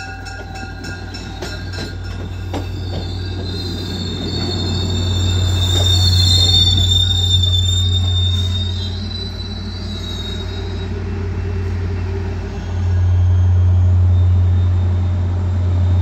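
MBTA commuter rail coaches rolling slowly past, their steel wheels squealing high and thin on the rails for several seconds. Under the squeal runs a steady low rumble that gets louder near the end.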